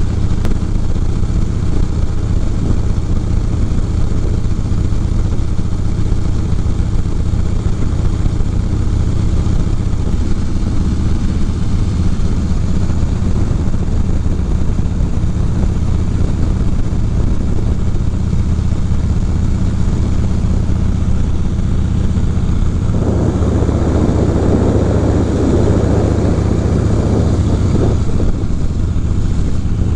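Harley-Davidson V-twin engine running steadily at cruising speed, heard from the rider's handlebars, mixed with wind and road noise. For about five seconds near the end a louder rush of noise rises over the engine, then drops back.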